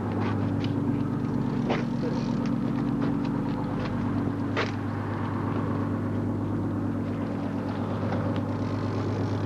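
Fishing boat's engine running steadily, a constant low drone. Two sharp knocks stand out, about two seconds and four and a half seconds in.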